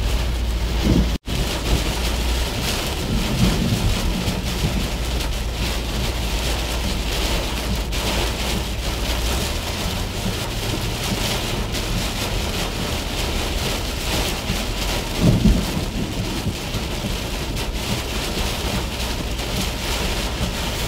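Heavy rain pelting a car's windshield and roof, heard from inside the moving car's cabin as a dense, steady hiss. About fifteen seconds in there is a louder low rumble.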